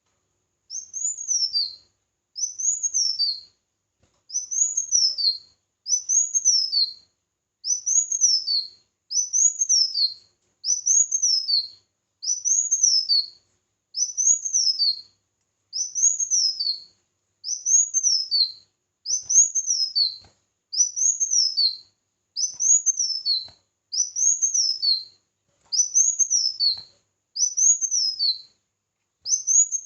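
Small songbird repeating one short, high-pitched phrase, a quick rising note followed by a falling run of notes, about every second and a half.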